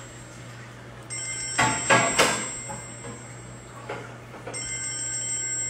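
A high electronic ringing tone that sounds twice, each time for about a second and a half, with a few sharp knocks about two seconds in.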